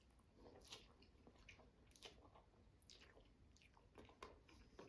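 Faint chewing of a mouthful of instant ramen noodles, with irregular soft wet mouth clicks and smacks.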